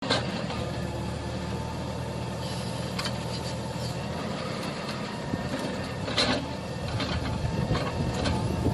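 Diesel engine of a wheeled hydraulic excavator running steadily, with a couple of sharp metallic knocks about three and six seconds in.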